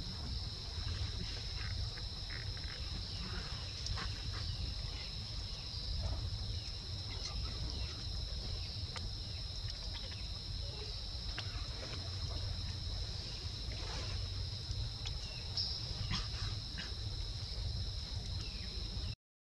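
Steady high insect drone in two close, even pitches, over a low rumble and scattered faint clicks and rustles. The sound cuts out completely for a moment near the end.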